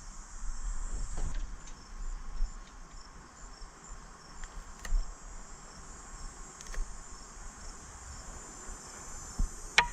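Crickets chirping steadily in a high, pulsing band, with a few sharp clicks and knocks, the sharpest near the end.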